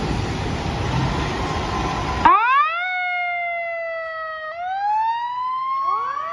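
A steady rushing noise cuts off about two seconds in, and a fire-engine siren starts wailing: it sweeps up sharply, sinks slowly, then climbs again. A second rising wail joins near the end.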